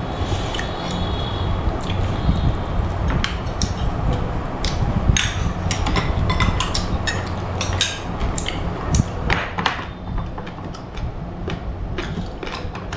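Metal spoon clinking and scraping against a small ceramic bowl during a meal: scattered short, sharp clinks over a steady low background hum.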